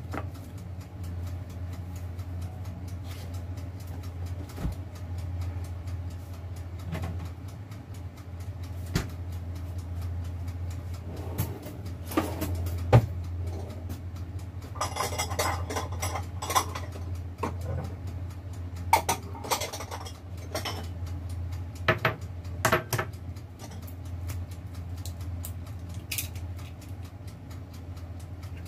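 Dishes and utensils clinking and clattering off and on in a kitchen, in several short clusters, over a steady low hum.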